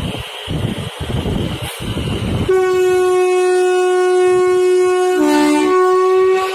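WAG-7 electric freight locomotive passing with a noisy rumble, then sounding its horn: one long steady note starting about two and a half seconds in and held for about four seconds, with a second, lower note joining briefly near the end.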